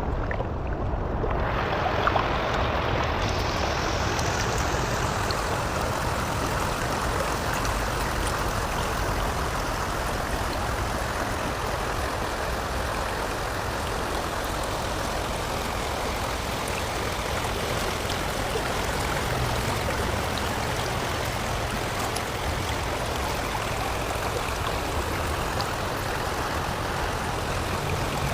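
Steady rush of flowing water, an even, unbroken noise with a low rumble underneath.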